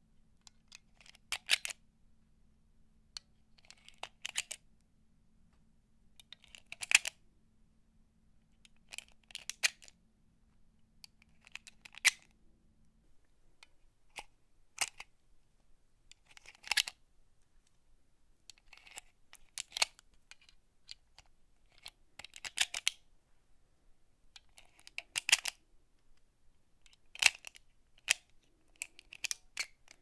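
9mm cartridges being pressed one at a time into a Glock 43 pistol magazine: a short metallic click or clack every two to three seconds as each round snaps in under the feed lips.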